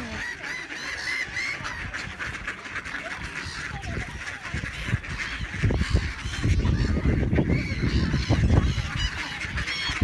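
A mixed flock of waterfowl calling over one another, many short honks and quacks at once, from mallards, greylag geese and gulls being fed. A low rumbling noise joins in during the second half.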